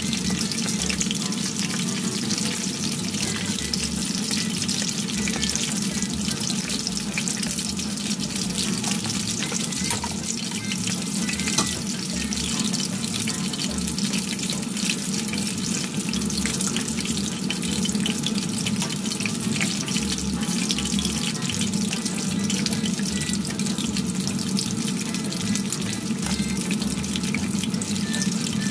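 Battered lotus-root slices deep-frying in hot oil: a steady, crackling sizzle.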